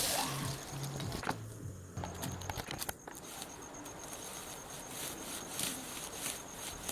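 Dry grass rustling and crackling as it is pulled up by hand, in irregular small clicks and scrapes.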